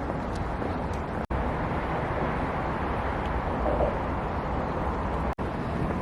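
Steady outdoor city street noise with passing traffic, broken by two brief silent gaps, about a second in and again near the end.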